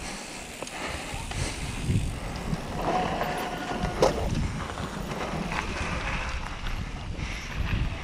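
Mountain bike rolling fast down a dirt trail: tyres on packed dirt and the bike rattling, under a rumble of wind on the microphone, with a sharp knock about four seconds in.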